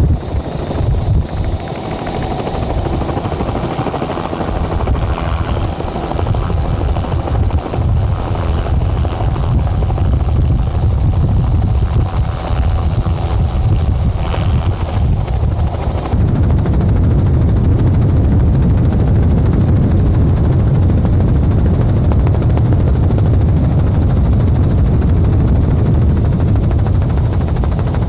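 Loud, steady drone of a helicopter's rotor and engine. The sound changes abruptly about 16 seconds in and then runs on steadily.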